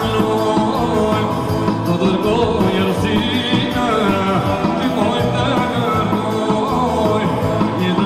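Albanian folk dance music with a singer's voice, played loudly over PA loudspeakers.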